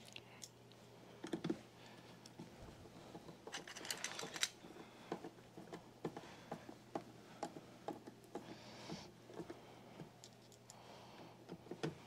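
Small, irregular clicks and taps of hands and a screwdriver working on the plastic housing and parts of a canister vacuum's motor compartment during reassembly, with a quick run of clicks about four seconds in.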